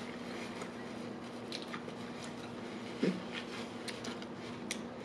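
A person chewing a mouthful of sub sandwich close to the microphone: soft wet mouth clicks and smacks, with one short, louder mouth sound about three seconds in. A faint steady hum runs underneath.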